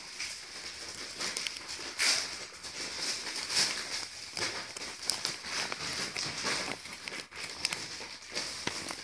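Paper leaflet and plastic toy wrapper crinkling and rustling as they are unfolded and handled, with many small crackles.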